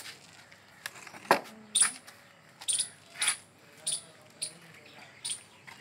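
Rope squeaking in short, sharp pulls as it is drawn through and tightened in the woven seat of a charpai, about seven squeaks, one every half second to a second. About a second in there is a louder knock as the rope snaps taut against the wooden frame.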